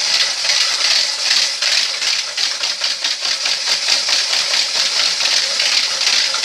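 Electric hand mixer running steadily, its beaters whisking egg yolks and pineapple juice in a plastic bowl with a fast, even rattle, whipping the mixture to a foam.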